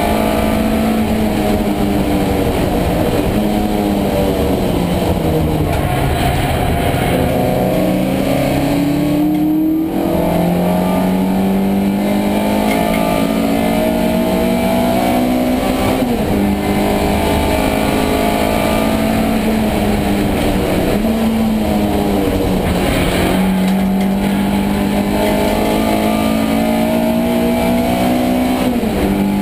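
Race car engine heard from inside its stripped, caged cabin while lapping. Its pitch sinks for a few seconds as the car slows, then climbs hard and drops sharply several times as the driver changes up through the gears.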